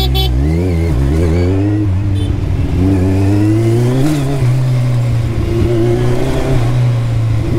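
Kawasaki motorcycle engine, heard from the rider's seat, accelerating and easing off several times as the bike threads through slow traffic, its pitch climbing and dropping, then holding a steady cruise near the end.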